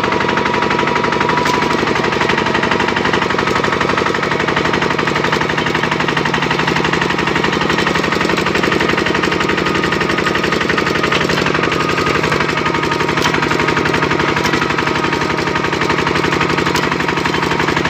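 Kubota RT-series single-cylinder diesel engine of a two-wheel walking tractor running steadily as the tractor drives along, a rapid, even beat of exhaust pulses.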